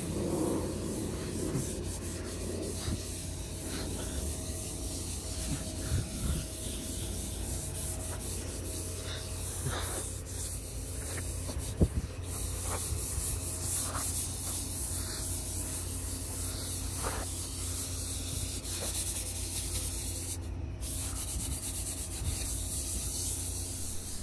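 Steady rubbing, scraping noise over a low hum, with a few light clicks and one sharp knock about halfway through.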